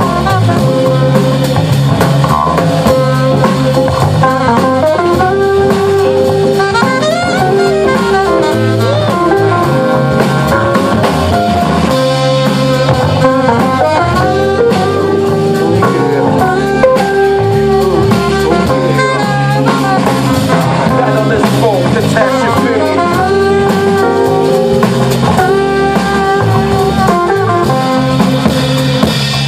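Live jazz-blues band playing: drum kit, electric guitar, electric bass, keyboard and saxophone, with long held melody notes over a steady beat.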